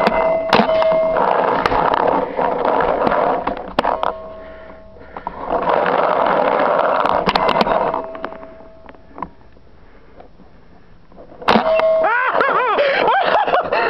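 Paintball markers firing: sharp pops in quick clusters, with stretches of loud rushing noise between them. Near the end a wavering, rising-and-falling sound starts.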